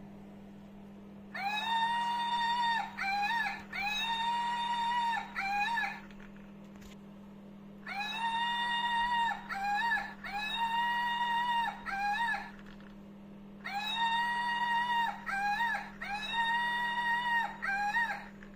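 Battery-operated MILE plush shaking monkey toy playing its electronic monkey cry from a sound chip: a long, shrill, steady-pitched cry, a short up-and-down chirp, another long cry and chirp. The same sequence plays three times with a short pause between each.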